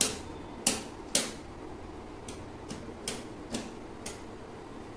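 Straight knitting needles clicking against each other as stitches are worked: about eight short, sharp clicks at irregular intervals.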